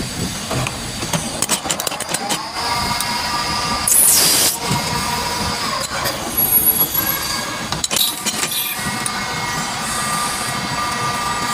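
A small metal lathe running while turning brass parts: a steady machine whine with scattered metallic clinks. A loud harsh burst comes about four seconds in, and a cluster of sharp knocks around eight seconds.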